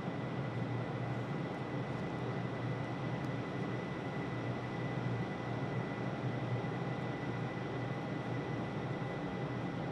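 Steady background hum of a large indoor sports hall, with a faint, constant high-pitched tone running through it.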